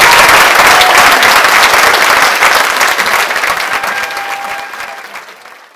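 Audience applauding after a spoken story ends, a dense patter of many hands clapping that dies away over the last couple of seconds.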